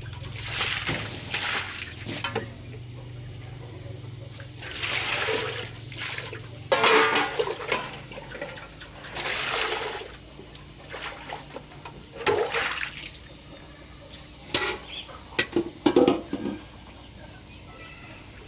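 Water pouring and splashing in repeated bursts, several seconds apart, over a low steady hum that fades out about halfway through.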